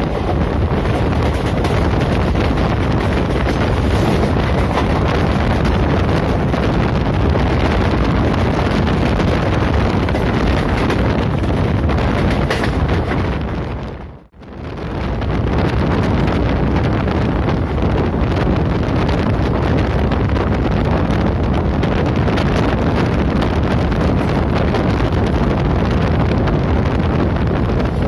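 Wind rushing over the microphone and the steady running noise of the Sevagram Express passenger train at about 90–105 km/h, heard from the side of a moving coach. The noise drops out briefly about halfway through, then returns at the same level.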